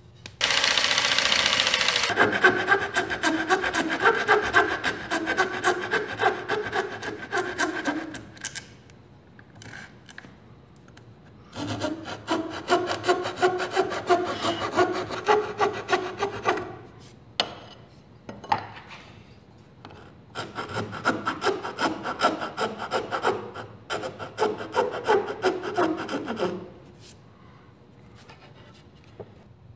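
Hand rasp filing the sawn edge of a melamine panel in three bouts of rapid strokes, fine-tuning a scribed cut to fit around a molding.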